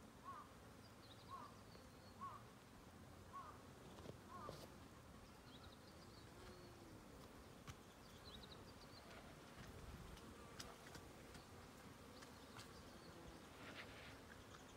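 Faint buzzing of bees working the plum blossoms. A bird gives a short call about once a second for the first few seconds, with a few fainter, higher chirps later.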